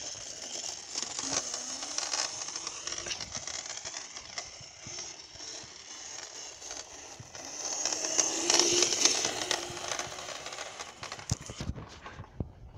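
Rushing, crackling wind and handling noise on a handheld phone microphone outdoors, with a faint low whine that rises in pitch twice, about a second in and again around eight seconds, when the noise is loudest.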